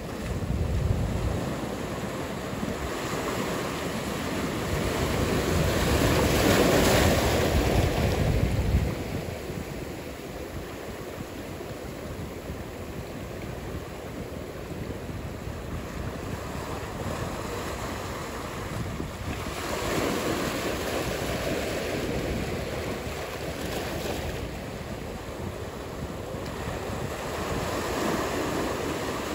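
Ocean surf, waves breaking and washing in as a steady rushing noise. It swells to its loudest about seven seconds in, with smaller swells around twenty seconds and near the end.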